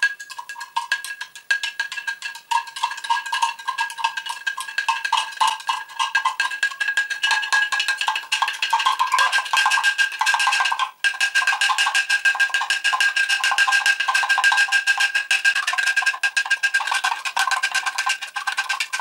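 Spoon stirring a solution in a glass jar, clinking rapidly and continuously against the glass with a steady ringing tone, briefly stopping about eleven seconds in. The stirring is dissolving crystal-growing powder completely into the water.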